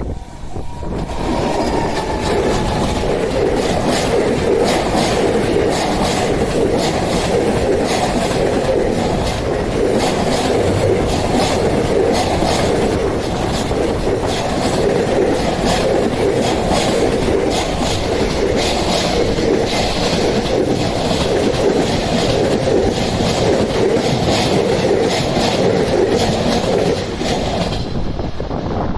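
A long train passing close by, its wheels clattering over the rail joints in an even, continuous rhythm for about 26 seconds before the sound falls away near the end.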